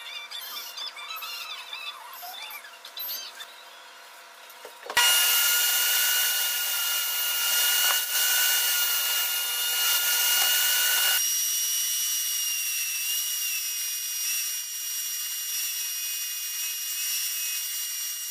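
Table saw running with a steady whine as pine boards are fed through it. It starts suddenly about five seconds in, and its tone shifts about eleven seconds in. Before it starts, there are faint squeaks and rubbing as a screw is driven into the wooden box.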